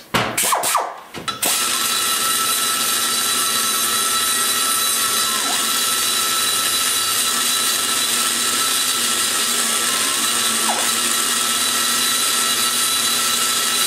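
Die grinder with a ball-shaped carbide burr cutting into the aluminium exhaust port of a big-block Chevy cylinder head, running at a steady high-speed whine. A few short blips come first, then it settles into a continuous cut about a second and a half in.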